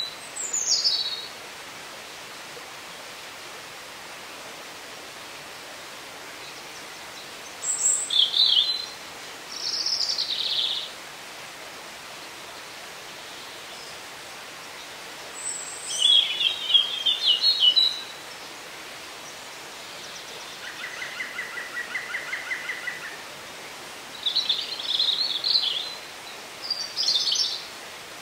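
Woodland songbirds singing short phrases of quick, high notes every few seconds. A little past the middle comes a lower, even trill of rapid repeated notes lasting about three seconds. A steady hiss runs underneath.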